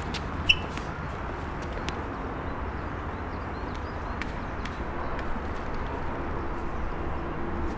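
Outdoor background ambience: a steady low rumble and hiss, with a few faint bird chirps and light clicks scattered through it.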